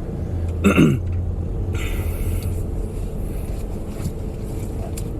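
Car engine running at low speed, heard as a steady low hum inside the cabin while the car moves slowly. A short voice-like sound falling in pitch comes about a second in, and a brief hiss about two seconds in.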